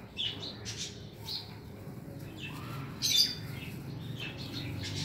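Lovebirds giving short, scattered chirps and squawks, the loudest call about three seconds in.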